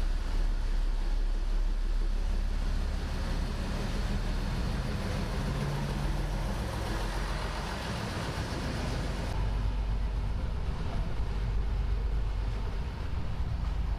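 Fiat ALn 663 diesel railcar's engines running as the railcar pulls away on a slow shunting move. The sound turns abruptly duller about nine seconds in.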